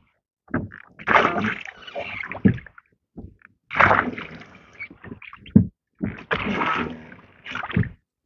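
Water splashing and sloshing around a small boat crossing a lake, heard in several short stretches that start and stop abruptly.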